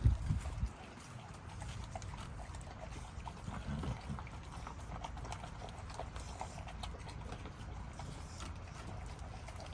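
American Bully dogs eating raw meat: a run of small wet smacks and clicks of chewing. There is a low thump right at the start and another low burst about four seconds in.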